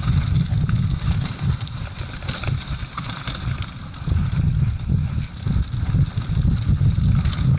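A mountain bike rattling down a rough dirt trail, heard from a handlebar-mounted camera: a heavy, fluctuating low rumble of wind and vibration with frequent small clacks and rattles from the bike over bumps. It eases a little for a moment and grows louder again about four seconds in.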